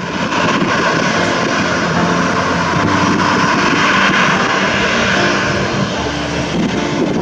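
Boeing 737-800's CFM56 jet engines running as the airliner taxis: a steady rushing jet noise with a few held lower tones beneath it.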